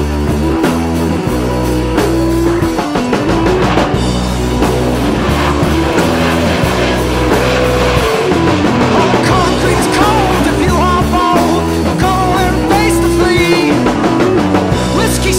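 Background rock music with a steady, pulsing bass line.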